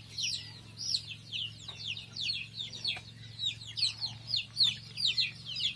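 A flock of 50-day-old desi (indigenous) chicks peeping continuously. Many short, high-pitched peeps that fall in pitch overlap at several a second.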